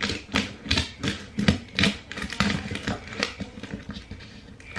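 Scissors snipping and cutting at the packing tape on a cardboard box: an uneven run of sharp snips and crunches, about three a second.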